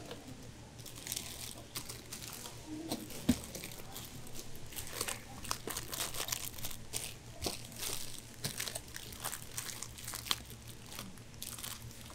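Plastic-wrapped candy bars crinkling and rustling as gloved hands stack them into a clear plastic jar, in many short crackles, with one sharper knock about three seconds in. A faint steady low hum runs underneath.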